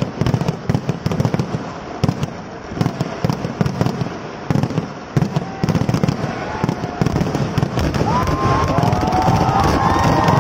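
Kerala temple-festival fireworks (vedikettu) going off in a dense, continuous barrage: many sharp cracks and bangs a second, coming unevenly.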